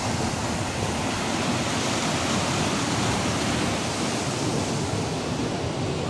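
Steady rush of Basaseachi Falls and its river: an even, unbroken hiss of falling and running water.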